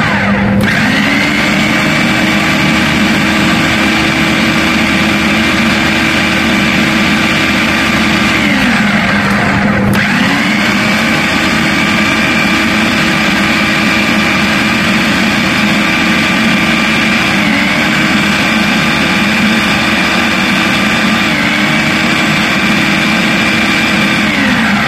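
Electric food processor blending frozen strawberries, blackberries and milk into a smoothie. The motor spins up and runs steadily, winds down about nine seconds in, then starts again a second later and runs with two brief dips in pitch under the load before winding down near the end.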